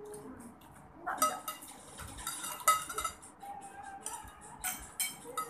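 Cutlery clinking and scraping against a plate or bowl in short, irregular clicks.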